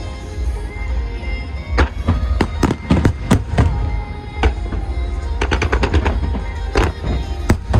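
Fireworks bursting in irregular volleys of sharp bangs and crackles, with a quick rapid run about five to six seconds in, over the show's music soundtrack and a steady low rumble.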